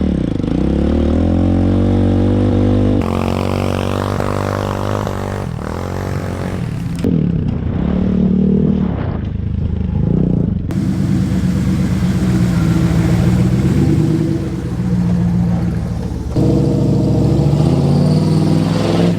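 1998 Dodge Ram 2500 pickup's engine running and revving as it drives through off-road trails, its pitch rising and falling. The sound changes abruptly a few times.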